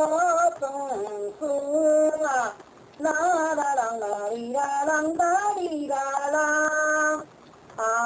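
A woman singing in Taiwanese opera (gezaixi) style, holding long notes with a wavering vibrato and sliding between pitches. The phrases break off briefly twice, about two and a half seconds in and again near the end.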